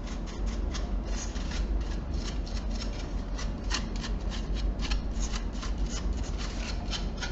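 Dust being scrubbed off the inside of a PlayStation 4 console in quick, irregular rubbing strokes, about three or four a second.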